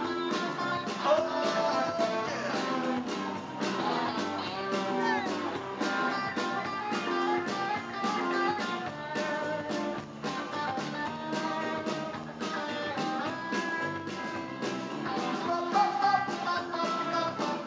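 Live rock band playing: electric guitars and bass over a drum kit with a steady beat, heard loud through the venue's PA.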